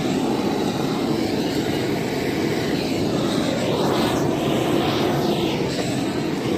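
Steady roar of an LPG gas blowtorch flame, fed from a gas cylinder, singeing a plucked chicken.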